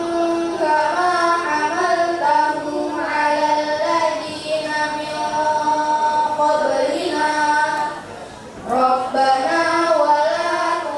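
Children chanting Qur'anic verses in melodic recitation through microphones, with long held, gliding notes. The chant breaks for a breath about eight seconds in, then resumes.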